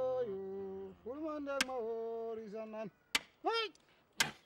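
A man humming a few long, level notes, with a short rising-and-falling 'hmm' near the end. Three sharp clicks of draughts pieces being set down on the board come about one and a half, three and four seconds in.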